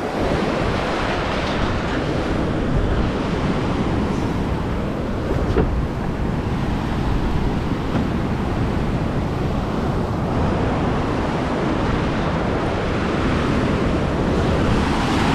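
Ocean surf breaking and washing up a beach in a steady rush, with wind buffeting the microphone.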